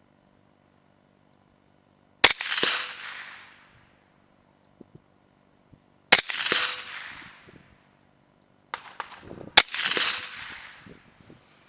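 Three single rifle shots from an AR-15 in 7.62x39 firing steel-case Tula rounds, spaced about four seconds apart. Each is a sharp crack with a ringing echo that dies away over a second or so, and light clicks come just before the third shot.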